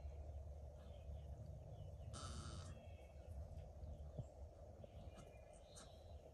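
Quiet stall ambience with a steady low hum. A single short animal call comes about two seconds in, with a few faint high chirps.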